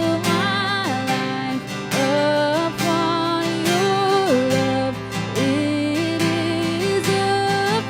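Worship band music: strummed acoustic guitar under a melody of held notes that step up and down.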